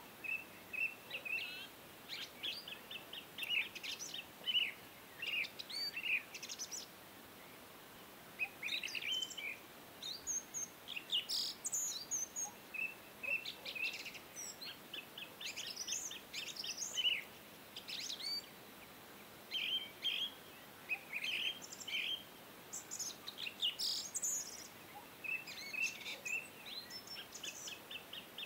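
Birds chirping in quick, high-pitched trills and bursts, repeating every second or two with short gaps.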